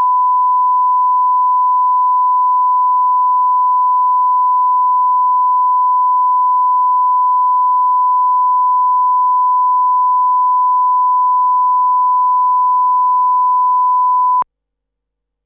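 Broadcast line-up tone at 1 kHz accompanying a television countdown clock: a steady pure test tone that cuts off suddenly near the end.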